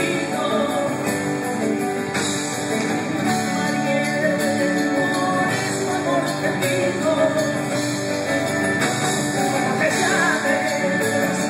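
Live band playing: grand piano, acoustic guitars, bass and drum kit.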